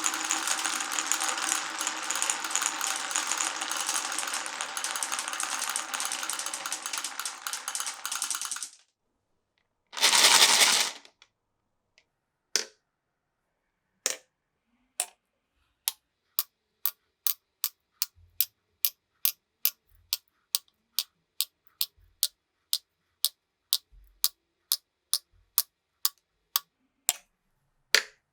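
Glass marbles on a marble run: first a dense, continuous rolling clatter of many marbles, which stops about nine seconds in. After a brief rush near ten seconds, single sharp clicks follow, a few at first and then a steady run of about two to three clicks a second.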